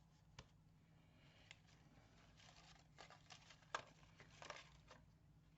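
Faint rustles and light clicks of paper die-cut pieces being handled and sorted, scattered irregularly through near silence.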